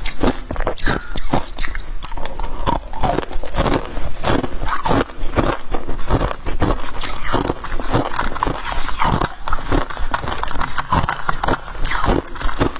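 Freezer frost being bitten and chewed close to the microphone: a continuous run of crisp, crackling crunches.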